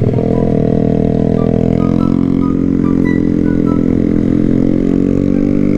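Honda CBR150R's single-cylinder engine running while riding, heard close up from the bike; its note drifts down slightly, then rises again near the end.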